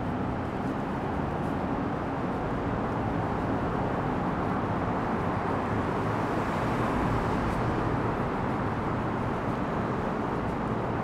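Steady hum of road traffic heard in a highway underpass, an even wash of noise with no distinct events.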